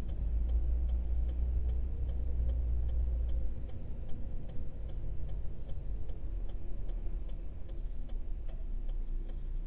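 A car's turn indicator clicking steadily and evenly as the car turns, heard inside the cabin over the low rumble of engine and road. The rumble drops after about three and a half seconds.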